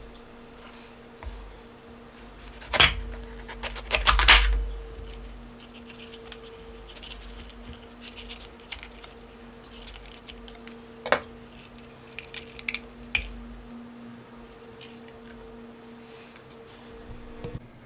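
Chef's knife cutting a bell pepper on a bamboo cutting board: a few sharp knocks of blade and pepper against the board, the loudest about three to four and a half seconds in and another about eleven seconds in, with small clicks and scrapes between.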